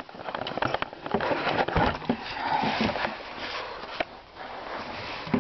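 Handling noise: irregular clicks, knocks and rubbing, with breathy sniff-like sounds close to the microphone.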